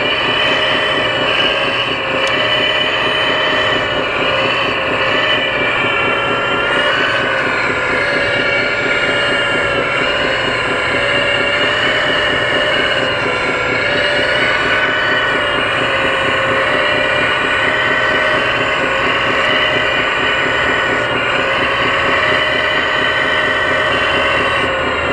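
1/14-scale RC hydraulic excavator working as it digs and swings a load. It makes a steady mechanical whine with several tones, which dips and recovers in pitch a few times as the machine takes load.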